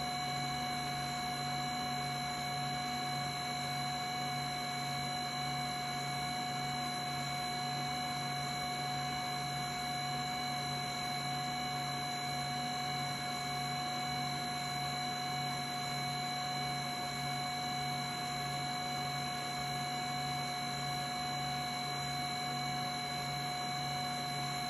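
HumminGuru ultrasonic record cleaner in its drying cycle: its fan and record-turning motor running with a steady hum and several high, constant whining tones, the low hum pulsing about twice a second.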